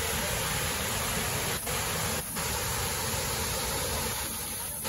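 Steady rushing of a waterfall in spate, its water brown and muddy with runoff.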